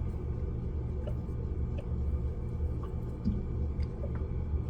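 Steady low hum with a few faint light clicks as stripped wire ends are fed into a solder-seal heat-shrink butt connector.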